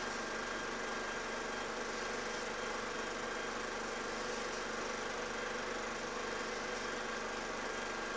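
Steady hum and hiss with a few constant tones, unchanging throughout, with no separate clicks or stitching rhythm.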